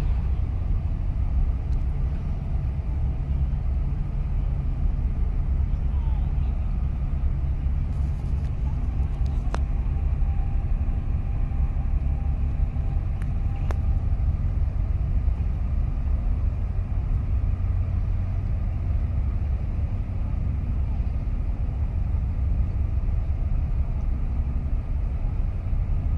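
Wind buffeting the microphone: a steady low rumble with no clear engine note.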